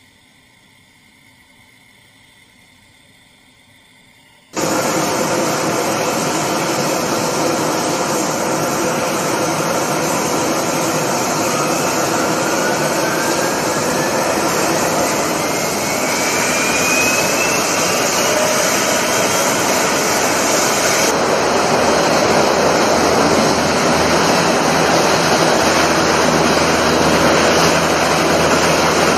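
Gas turbines and lift fans of a US Navy LCAC hovercraft running loud and steady, cutting in suddenly about four and a half seconds in after a few quiet seconds. A rising whine climbs through the noise partway through as the engines spool up, and the craft blasts sand off the beach.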